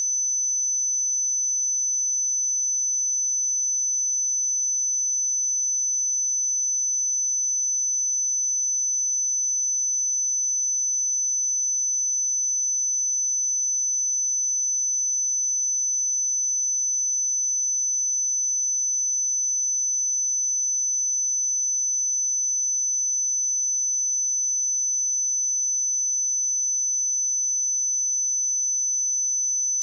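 A steady, high-pitched 6042 Hz sine-wave test tone, a single pure pitch held at a constant level.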